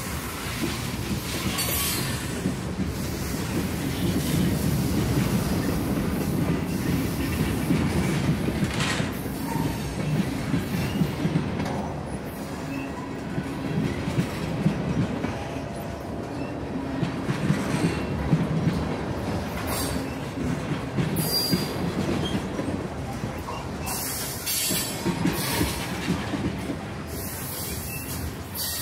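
A train rolling past on the rails with a steady low rumble, and high wheel squeals that flare up several times.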